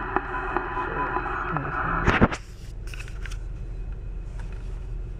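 Low, steady hum of a car interior with a muffled radio-like sound and small clicks over it. About two seconds in comes a loud short clatter, after which the radio-like sound stops and only the low hum remains.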